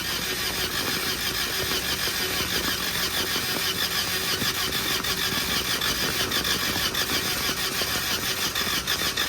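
Starter motor cranking a water-flooded Honda F22 four-cylinder engine with its spark plugs back in, turning it over in a steady, even rhythm without it firing.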